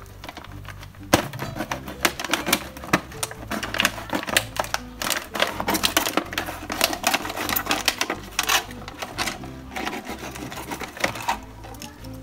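Scissors cutting through a thin plastic water bottle: quick runs of snipping clicks and crinkling plastic, starting about a second in and stopping near the end. Background music with steady held notes plays underneath.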